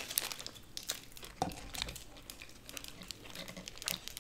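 Small plastic packets of In-N-Out spread crinkling as they are handled and squeezed onto burgers, with scattered light clicks and taps.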